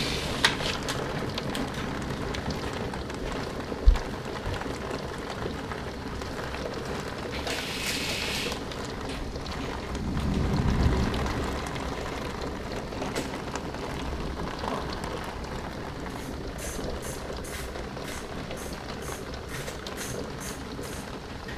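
Heavy thunderstorm rain pouring steadily, with a sharp thump about four seconds in and a low rumble swelling about halfway through.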